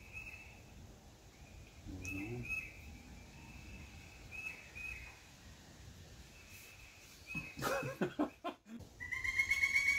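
Pileated woodpecker calling: a loud, rapid run of high, evenly spaced notes starting about nine seconds in. Fainter bird chirps come before it.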